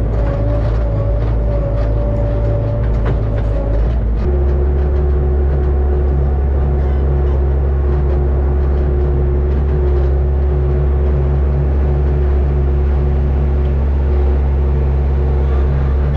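Bobcat skid-steer loader engine running, heard loud and close from the operator's seat. Its note shifts about four seconds in, then holds steady.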